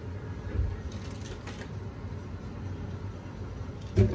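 Cooking at a stove: a steady low hum with a few faint clinks, then a loud sharp clatter of cookware near the end.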